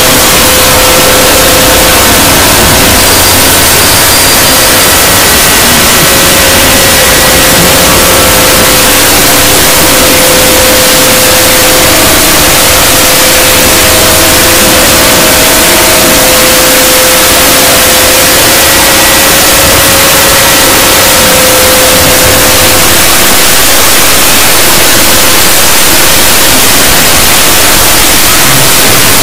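Extremely loud, digitally overdriven audio: a steady wall of clipped, static-like noise with a few faint held tones buried underneath, the kind of 'earrape' distortion made by boosting a sound far past full scale.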